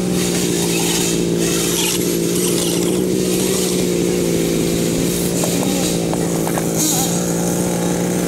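Small petrol engine running at a steady, unchanging speed, giving a constant buzzing drone.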